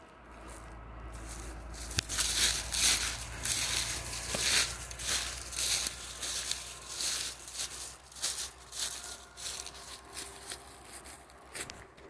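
Footsteps crunching and crackling through dry fallen leaves and twigs, in quick irregular strokes from about two seconds in, thinning out near the end, with a low steady rumble under the first half.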